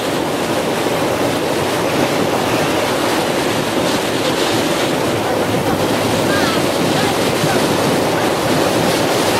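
Steady rush of rough sea surf breaking against the shore, with wind noise on the microphone.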